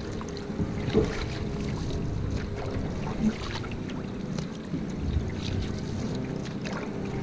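Single-blade paddle strokes from a kneeling canoeist: the blade splashing into and out of the water, with water running off it, over wind noise on the microphone. A few short louder splashes stand out, about a second in, past three seconds and at the very end.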